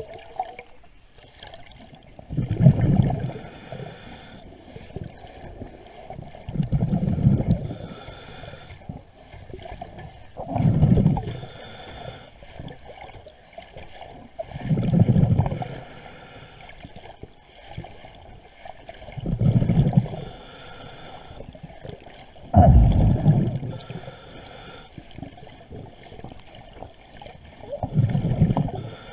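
A diver's breathing through a scuba regulator, heard underwater: a burst of exhaled bubbles rumbles about every four seconds, with a quieter hissing inhale between the bursts.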